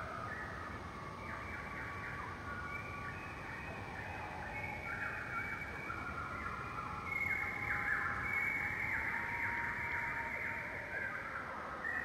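Many birds chirping at once in a dense, overlapping chorus of short calls, many of them quick falling whistles. The chorus grows a little louder about seven seconds in.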